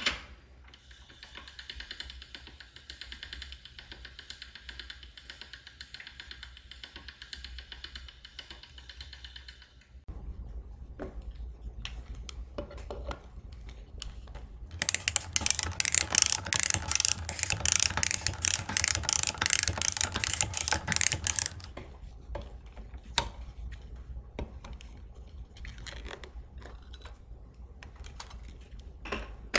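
A hand-cranked pasta machine turning steadily, then a red handheld can opener worked around the rim of a tin can. About halfway through, the opener gives a fast run of ratchet-like clicks lasting several seconds, the loudest part.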